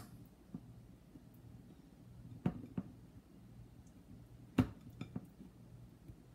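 A few light, sharp knocks and taps of a bowl being handled and shifted on a hard tabletop while raw fish slices are arranged in it, the two loudest about two and a half and four and a half seconds in, over a faint steady hum.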